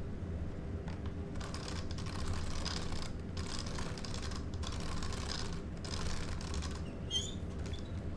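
WLtoys 124018 RC buggy being handled and turned on a tabletop: plastic body and metal chassis parts clicking and rattling in stretches, with a short squeak about seven seconds in, over a steady low hum.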